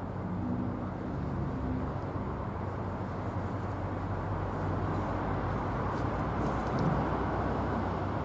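Diesel locomotive engine running steadily: a low, even rumble with a hum.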